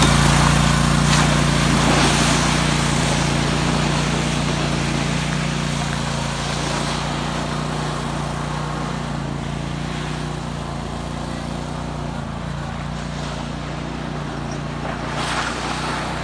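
Zero-turn riding mower engine running steadily, growing fainter as it pulls away. A short louder burst of noise comes near the end.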